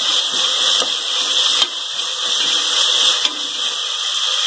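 Sliced onions and ginger-garlic paste sizzling steadily in hot oil and ghee in an aluminium pressure cooker. A wooden spatula stirs and scrapes against the pot a few times in the first seconds.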